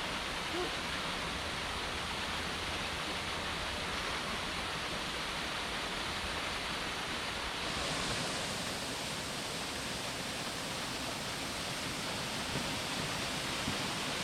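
Steady rushing of a waterfall, an even hiss without let-up, turning brighter and more hissy abruptly about eight seconds in.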